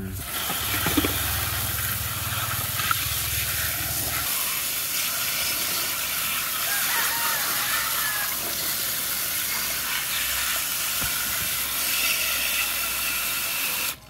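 Garden hose spray nozzle jetting water onto plastic toy vehicles in a plastic basket: a steady spray hiss that cuts off suddenly at the end. A low hum runs under it for about the first four seconds.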